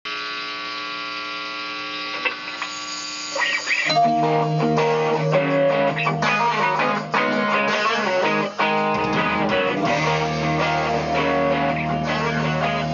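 Electric guitar, a Telecaster-style solid body, playing: a chord held ringing for about four seconds, then steady rhythmic strummed playing with a low bass line begins.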